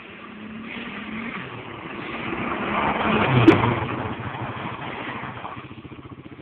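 A four-wheeler (ATV) engine revs as the quad rides up close through a turn and pulls away. The sound rises to its loudest about three and a half seconds in, then fades.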